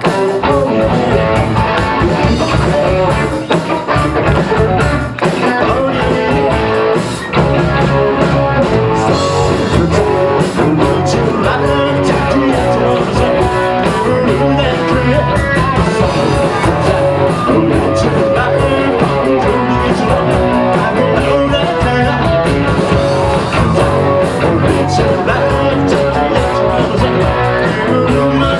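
Live rock band playing loud and without a break: electric guitar and drum kit, with a singer.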